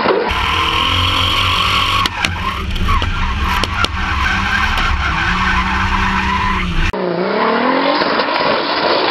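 BMW E36 drift car sliding through a drift, heard at first from a camera mounted beside the rear wheel: heavy wind rumble over a steady engine drone, with a few sharp cracks in the middle. About seven seconds in, the sound switches to the track side, with the engine revving up and down as the tyres skid.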